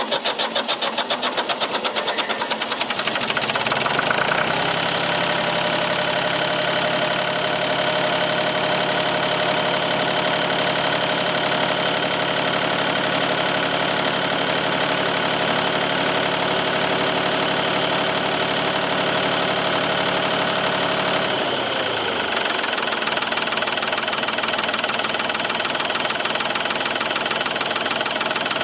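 Ford 3000 tractor engine cranking on a jump-start booster, catching about four seconds in and then running steadily. About 21 seconds in it slows to a lower idle and keeps running.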